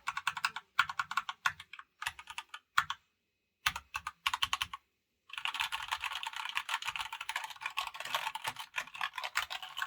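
Epomaker GK96s mechanical keyboard being typed on while it rests on a mouse mat: short clusters of keystrokes with brief pauses, then a fast continuous run of typing from a little past halfway.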